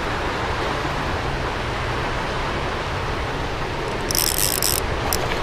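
A fishing reel's drag buzzing out line in a short, rapid clicking burst about four seconds in, as a hooked smallmouth bass runs. Under it, the steady rush of the creek.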